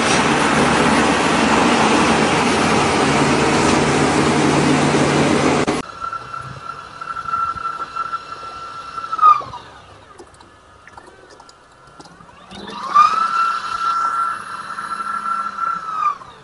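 Loud, steady noise of a chain-driven rope-twisting and netting machine, cut off suddenly about six seconds in. Then a large concrete 3D printer: a motor whine rises to a steady high pitch, holds, and falls away, twice.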